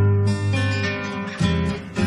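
Background music: strummed acoustic guitar chords, with a new chord struck about one and a half seconds in.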